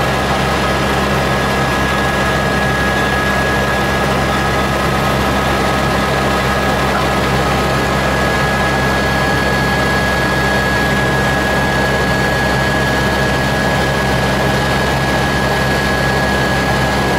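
Eurocopter AS350B Ecureuil helicopter heard from inside the cabin in cruise: a steady drone of the rotor and its single turboshaft engine, with a constant high whine over it.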